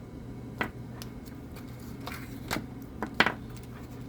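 Light clicks and taps of AA batteries and metal multimeter test probes being handled on a work surface, about five in all, the loudest a little after three seconds in, over a steady low hum.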